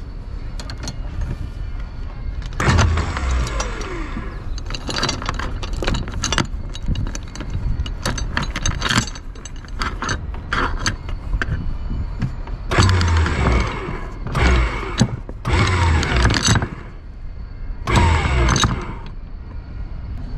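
Steel anchor chain clanking and rattling against the windlass gypsy, with many small knocks and five louder bursts of rattling. The chain is binding up on a gypsy it doesn't quite fit.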